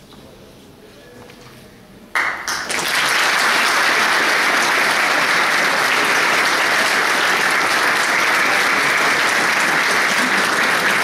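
Audience applauding: after a quiet pause, the clapping starts suddenly about two seconds in and holds steady.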